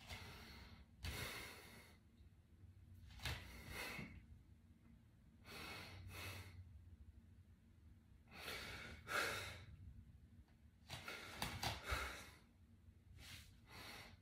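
A man breathing hard, a rush of breath in or out about every two seconds, about seven in all, while straining to hold flexed bodybuilding poses.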